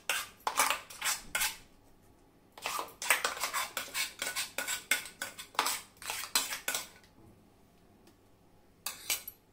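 Steel spoon scraping and knocking inside a stainless steel mixer-grinder jar, scooping out thick ground coconut chutney, in rapid strokes with a short pause about two seconds in. The strokes stop about seven seconds in, with a couple of light clicks near the end.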